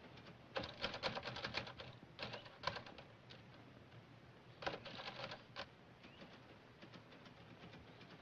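Manual typewriter being typed on in three quick bursts of keystrokes, the longest about a second in and the last a little past the middle.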